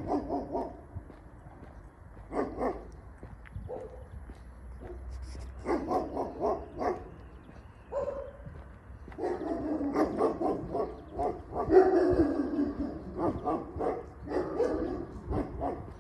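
A dog barking repeatedly in runs of short barks, the longest and loudest run from about nine to thirteen seconds in.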